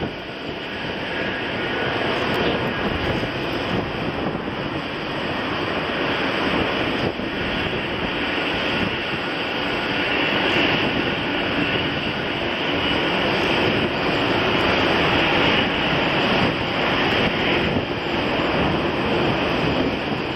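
Boeing 747-400F freighter taxiing on its four jet engines at low power: a steady whine over a rumble, growing louder as the jet draws near.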